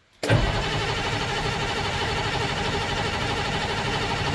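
Starter cranking a Ford 7.3 L diesel engine, coming in suddenly just after the start and running steadily without the engine firing. This is a hard start on weak glow plugs that don't warm the engine long enough to catch.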